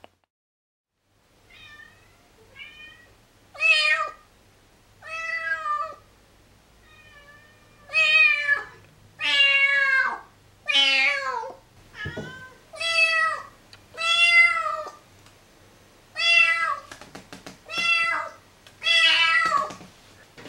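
Siamese kitten meowing over and over: about a dozen separate drawn-out calls, each half a second to a second long, fainter at first and loud from about eight seconds in.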